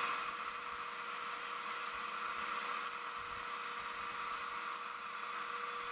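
A bandsaw running and cutting a circle out of a plywood blank: a steady hiss of the blade in the wood over a faint steady tone.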